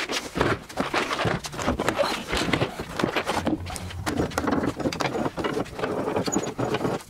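A run of quick clicks, knocks and clatter as plastic parts-organizer boxes used as weights are lifted off a glued-up panel and the bar clamps holding it are loosened and shifted.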